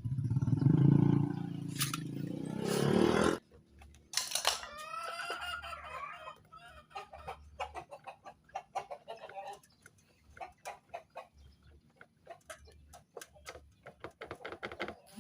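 Yamaha Vixion 150cc single-cylinder engine running while its clutch is worked, with a rough noise from the clutch and gearbox area that the mechanic puts down to the transmission ratio gears, a fault that needs the engine opened. The engine cuts off suddenly about three seconds in. A rooster crows a second later, followed by scattered light clicks.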